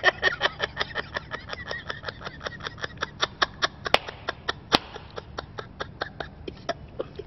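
A man laughing long and hard in a rapid run of short 'ha' pulses, about six or seven a second, that slowly grow weaker. Two sharp clicks come a little under a second apart about four seconds in.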